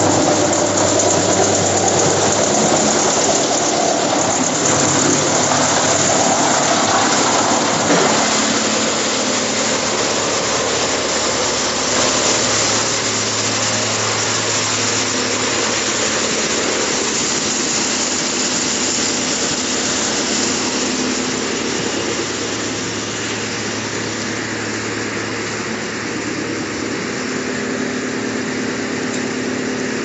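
YMPJ-218 industrial wood chipper running with a loud, continuous mechanical din and a steady hum underneath, loudest over the first several seconds while birch logs are fed in and chipped. A sharp crack comes about eight seconds in.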